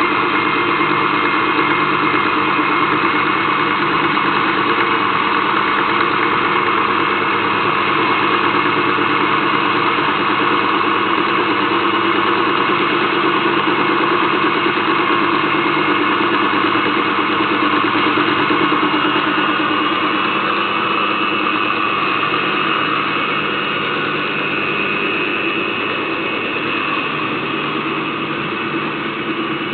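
Portable line boring machine running steadily, its drive humming with several steady tones; the level eases off a little about two-thirds of the way through.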